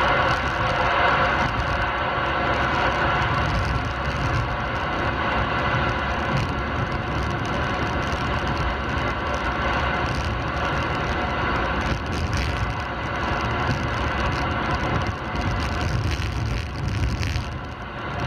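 Steady tyre and road noise inside the cabin of a moving 2013 Ford Fusion on GT Radial Champiro WinterPro winter tyres, mixed with hiss and static from a Uniden 980 SSB CB radio.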